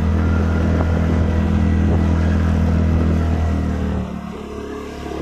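Motorcycle engine running steadily while riding, then quieter about four seconds in.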